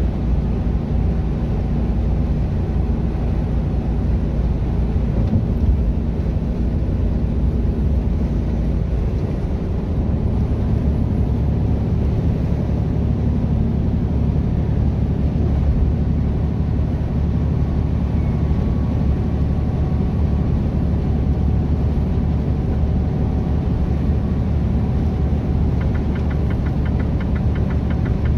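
Mercedes-Benz Actros truck's diesel engine and tyre drone heard inside the cab while cruising on the motorway, a steady low rumble. The engine note shifts about ten seconds in, and a brief rapid ticking comes near the end.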